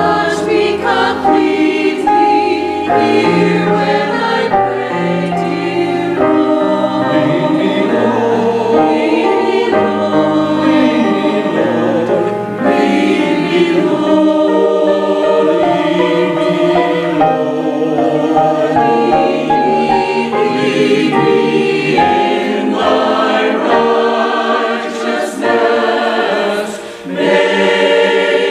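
A choir singing Christian worship music, many voices holding notes over an accompaniment with a moving bass line.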